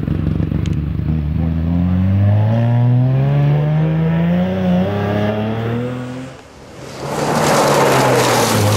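Rally car engine accelerating hard on a gravel stage, its note rising steadily in pitch. About seven seconds in, another rally car slides past close by, its engine running under a loud rush of spraying gravel.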